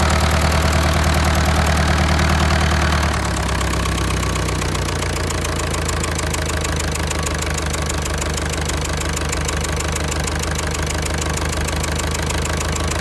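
Diesel engine running with a steady, even knock. About three seconds in it slows and runs quieter, then settles at the lower speed.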